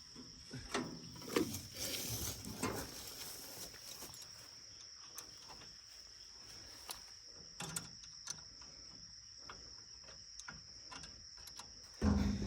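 Steady high-pitched insect chorus of field insects such as crickets, with scattered light knocks and clicks in the first few seconds and a sudden low rumble near the end.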